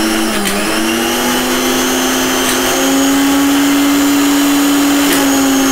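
Mixer grinder's universal motor running with no jar fitted, a steady high whine. The speed switch clicks about half a second in and again near three seconds, and each time the whine steps up in pitch; it dips a little near the end. This is a test run of the newly rewired speed connections.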